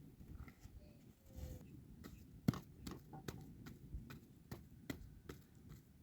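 Irregular light knocks and clicks, about one or two a second, starting about two seconds in; the sharpest comes about half a second later.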